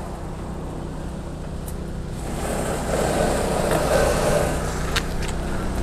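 Electric drive motors of a Magic Mobility Extreme X8 4x4 power chair running as it is driven by joystick and turned around. The steady hum grows louder about two seconds in, and there is a sharp click near the end.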